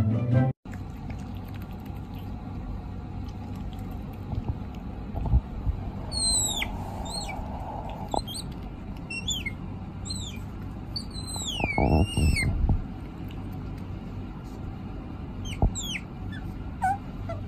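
Asian small-clawed otter squeaking: a run of high, thin chirps that sweep downward, some of them wavering, coming in two spells, with a few low bumps in between.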